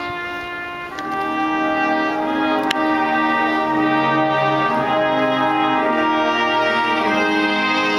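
Brass ensemble playing a slow piece in long held chords; the music swells louder about a second in.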